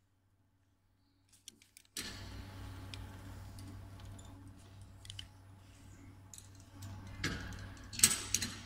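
Metal rope-access gear, karabiners and hardware on slings, clinking and rattling as the climbers move, over a steady low hum that comes in abruptly about two seconds in. Two louder clanks of gear handling come near the end.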